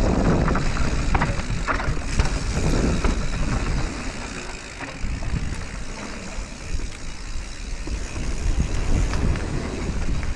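Radon Swoop enduro mountain bike riding fast downhill on a dirt trail: tyres rolling over dirt and roots, with the bike rattling and knocking over bumps and wind rumbling on the microphone. It gets quieter about four seconds in as the bike rolls out onto a smoother gravel road.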